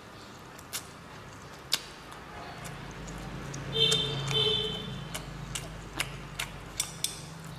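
Close-miked eating sounds from chewing spicy instant noodles: sharp, wet mouth clicks and lip smacks every second or so, coming faster near the end, with a brief squeaky sound about four seconds in.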